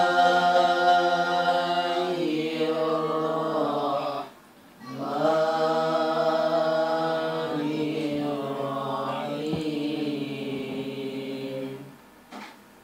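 A man reciting the Quran in a slow, melodic chant (tartil), singing into a hand-held microphone. Two long drawn-out phrases, with a breath pause about four seconds in; the voice stops shortly before the end.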